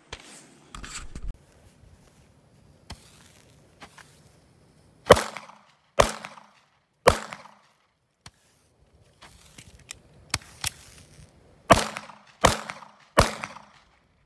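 Pistol shots: six loud, sharp reports in two strings of three, about a second apart in the first string and a little faster in the second, each with a short ringing tail. Fainter single pops sound between the strings.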